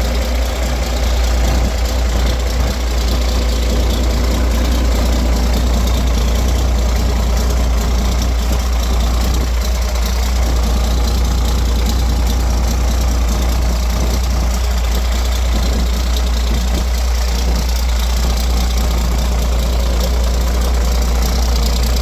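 Roadtec asphalt paver's diesel engine idling steadily. It runs smoothly, without coughing or sputtering, its fuel filter freshly changed.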